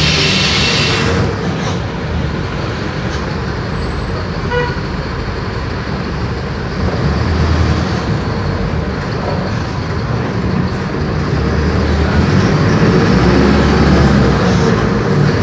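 Diesel engine of a Mercedes-Benz OF-1418 city bus running under way, growing louder toward the end as it pulls harder. A loud hiss of air cuts off about a second in, and a short beep sounds about four and a half seconds in.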